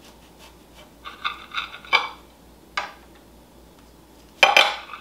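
A large kitchen knife cutting a baked corn bread on a ceramic plate: the blade scrapes and clinks against the plate a few times, with a louder clatter about four and a half seconds in.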